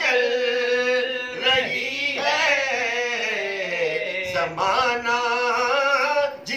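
Men singing a naat with no instruments, in long held notes whose pitch wavers, with a short break a little past the middle.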